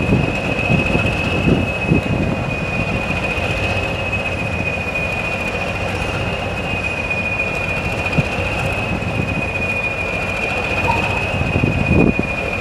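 Heritage British diesel locomotives, among them a BR green Class 20, idling: a steady low engine rumble under a thin, steady high whistle. A few low thumps come near the start and again near the end.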